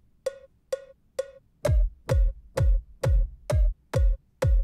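FL Studio's metronome ticking about twice a second: four count-in clicks alone, then from under two seconds in an electronic kick drum sample hits together with each click, its pitch dropping fast, as the kick is recorded along with the metronome.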